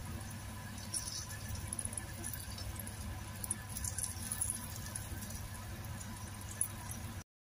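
Margarine sizzling faintly in a non-stick frying pan around a wrapped kebab on low heat, with fine scattered crackles and pops. The sound cuts out abruptly just before the end.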